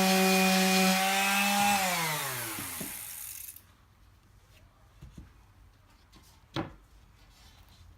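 Electric sander running steadily on wood, then switched off and winding down with a falling whine that fades out about three and a half seconds in. A few light knocks follow, one sharper than the rest a little past the middle.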